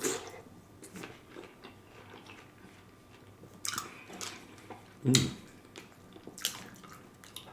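Close-up eating sounds of a spoonful of Nature's Cereal, fruit with pomegranate seeds in coconut water: wet chewing with small crunches and sharp clicks, and a few louder bites spread through.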